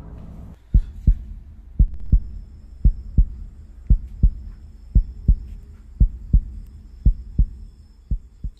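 Heartbeat sound effect: slow, low double thumps (lub-dub), eight beats at about one a second, growing fainter at the last beat.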